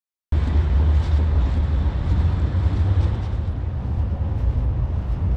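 Loud low rumble of wind buffeting an action-camera microphone outdoors, over city street noise. It starts abruptly about a third of a second in and carries on unevenly.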